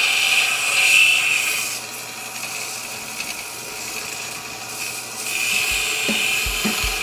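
Steady abrasive scraping of a tool working the steel leaf-spring cleaver blank, easing off and quieter for a few seconds in the middle.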